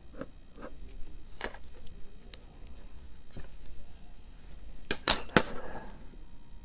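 Small taps and clicks of a clear plastic ruler and pencil being handled on cloth over a table, with a few sharp clacks about five seconds in, the loudest of them.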